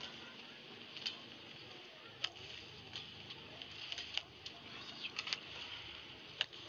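Badminton rackets striking the shuttlecock back and forth in a rally: a sharp crack about every second, over a steady arena hiss.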